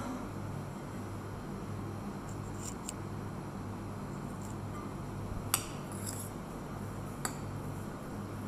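Metal spoon stirring a cabbage, carrot and tuna mixture in a glass bowl, with a few sharp clinks of the spoon against the glass, the loudest about five and a half seconds in. A steady low hum runs underneath.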